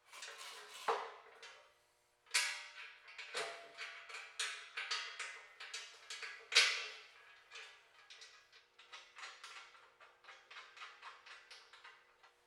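Hand tools and steel parts clinking and knocking against the steel track and bunks during sawmill assembly, with a run of lighter, evenly spaced clicks near the end.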